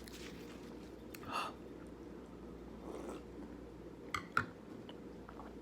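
Quiet chewing and soft mouth sounds of someone eating a mouthful of food, with two short clicks a little after four seconds in.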